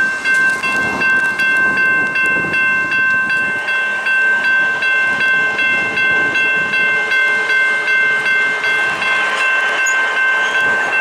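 Railroad crossing signal bell ringing rapidly, about three strokes a second, then cutting off abruptly at the very end.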